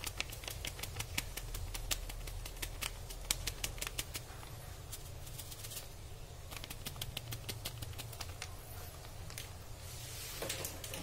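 Seasoning powder being poured and shaken from a packet into a plastic blender jar: quick light ticks in two spells, with a low steady hum underneath.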